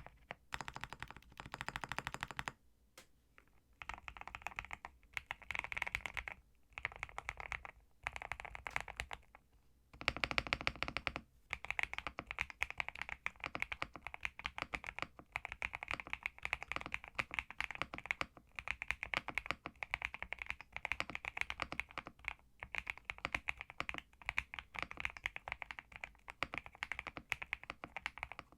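Typing on a Zuoya GMK67 mechanical keyboard with Leobog Graywood V3 switches and Cherry-profile keycaps. The keys go in short bursts with brief pauses at first, a louder run of keystrokes about ten seconds in, then fast continuous typing.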